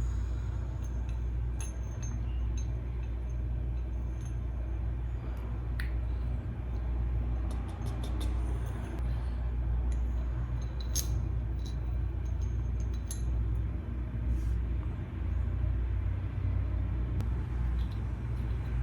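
A steady low rumble with scattered light metallic clicks and clinks from bike parts and hand tools being handled during a BMX sprocket swap.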